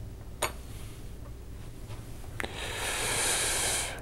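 IV tubing being worked free of an infusion pump. Two sharp clicks, about half a second in and again near the middle, then a rustling hiss for the last second and a half as the line is pulled out.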